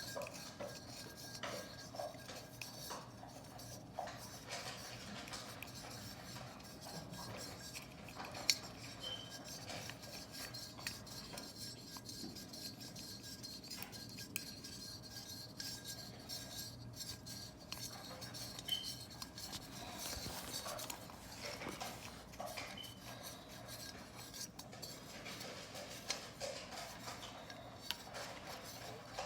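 Small clicks and scrapes of a light clamp being screwed by hand onto the screw of a ceramic Christmas tree light base. One sharper click comes about eight and a half seconds in.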